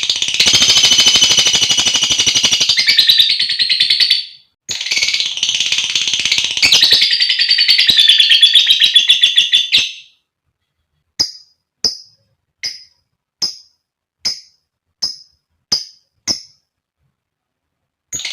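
Female lovebird calling: two long, rapid chattering trills of about four and five seconds, then eight short sharp chirps spaced under a second apart.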